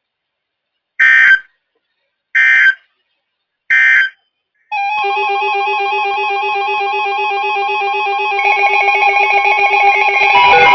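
Three short bursts of NOAA Weather Radio SAME data tones, the end-of-message code that closes a severe thunderstorm warning, each a fraction of a second long and about a second and a half apart. About a second after the last burst, steady layered electronic tones like music begin and grow busier near the end.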